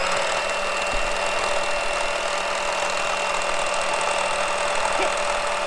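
Hot Wheels Corkscrew Crash track's motorized speed boosters running: a steady electric whir that holds one pitch.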